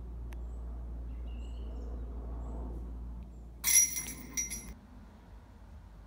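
A disc golf disc strikes a metal chain basket about three and a half seconds in. It makes a sharp metallic clank and jingle of chains that rings for about a second, with a second smaller clink just after.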